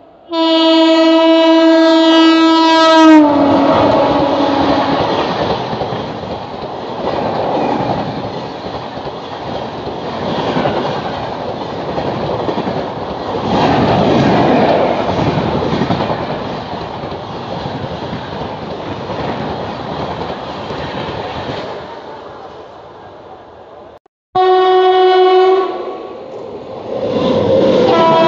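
Express train's horn sounding as it approaches at speed, its pitch dropping as the locomotive passes about three seconds in. Then comes the rush and wheel clatter of the passenger coaches running past, fading over about twenty seconds. After a break, another train's horn sounds briefly and a second express starts rushing past.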